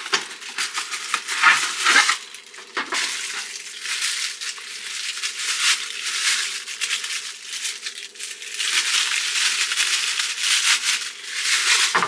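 Clear plastic packaging crinkling and rustling as it is pulled off a microphone boom arm, a dense run of crackles with cardboard packing handled at the start.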